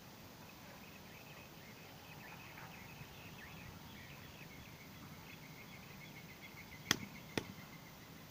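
Two sharp plastic clacks about half a second apart, near the end, as a PVC pipe fitting is handled and pressed onto the pipe, over faint high chirping.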